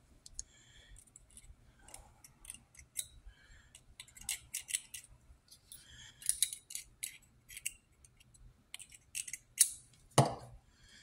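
Spyderco Military 2 folding knife being worked open and closed as its pivot is oiled: many irregular sharp clicks of the blade and lock, with short rasping sounds between them. A loud snap about ten seconds in comes as the blade swings open.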